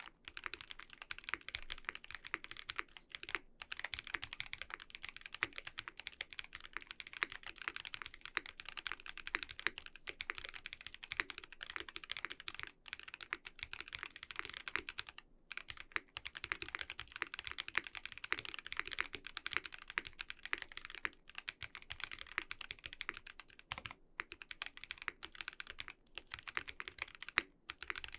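Steady, fast typing on a KBD8X MKII mechanical keyboard built with lubed NovelKeys Cream linear switches, a full brass plate, case foam and GMK keycaps. The keystrokes run densely, with a few brief pauses.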